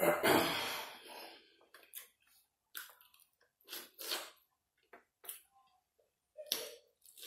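Close-miked eating of a saucy seafood boil: chewing and mouth sounds on shrimp in short separate bursts, with a louder rush of noise about a second long at the start.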